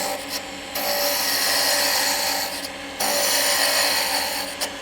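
A turning tool taking peeling cuts on a cherry blank spinning on a wood lathe: a steady hissing shear of wood as shavings come off, over the low hum of the lathe. The cut lifts off briefly three times: about half a second in, near the three-second mark and just before the end.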